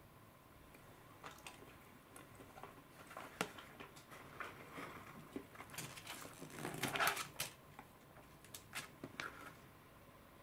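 A plastic spoon clicking and scraping against a plastic bento tray as food is scooped, with scattered light taps and a louder stretch of scraping about six to seven and a half seconds in.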